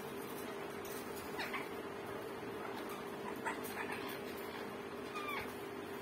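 Caged green parakeets giving about three short calls, the last a falling note near the end, over a steady low hum.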